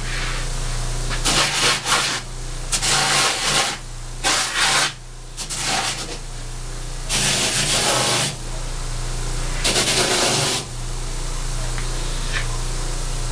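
Electric bench grinder running with a steady motor hum, its spinning wheel scuffing a suede leather combat boot in about five rasping passes of roughly a second each, roughing up the suede nap.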